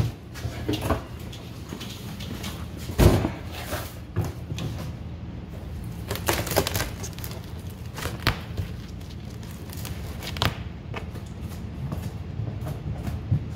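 A plastic-wrapped cardboard moving box being handled and shifted, with one heavy thump about three seconds in and scattered knocks and rustles after.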